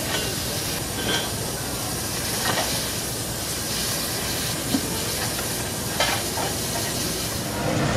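Steam hissing steadily from the top of a 1948 Robert Stephenson and Hawthorns 0-4-0 saddle-tank steam locomotive.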